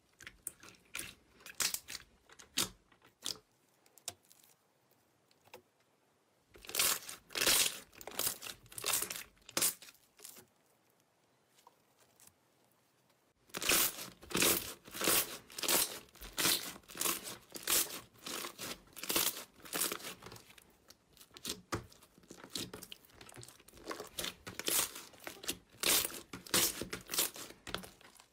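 Crunchy clear slime being pressed and squeezed by hand, giving dense runs of sharp crackling pops, with two quiet pauses of a few seconds between runs.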